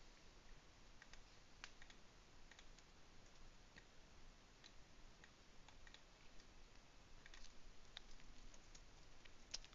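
Faint, irregular clicking from a computer mouse and keyboard over near silence.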